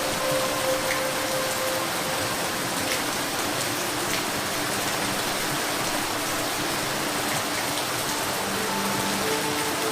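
Steady rain falling, an even hiss with scattered ticks of single drops. A few faint steady tones come and go underneath.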